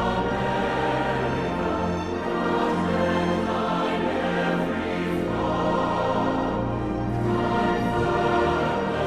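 Background music: a choir singing sustained notes with an orchestra.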